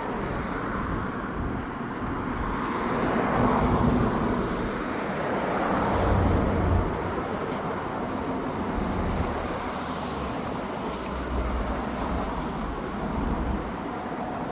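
Outdoor road traffic noise: a steady rumble of passing vehicles that swells a little about four and six seconds in.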